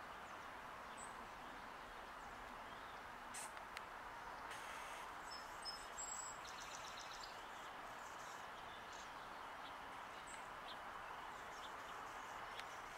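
Faint steady outdoor background noise, with a few brief high bird chirps and soft clicks around the middle.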